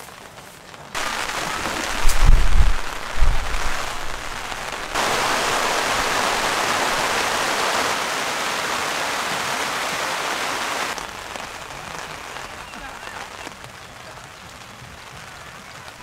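Steady rain falling on a camping tarp, getting louder about five seconds in and softer again about eleven seconds in. A few heavy low thumps, the loudest sounds, come between about two and three and a half seconds in.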